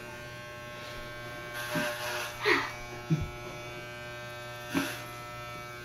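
Electric hair clippers buzzing steadily as they run over a man's head, cutting his hair. A few short louder sounds break in over the buzz.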